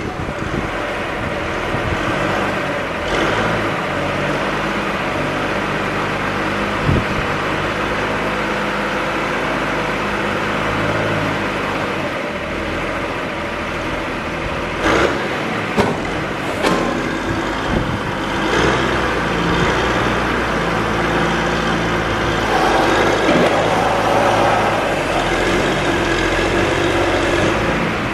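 John Deere 710 backhoe's diesel engine running steadily just after start-up, with a few short clunks; the engine gets a little louder about two-thirds of the way through.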